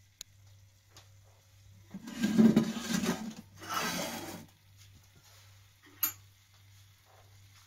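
Heavy lidded stainless steel soup pot slid across a cast-iron stovetop: two scraping pushes of about a second each, followed a couple of seconds later by a single sharp metallic click.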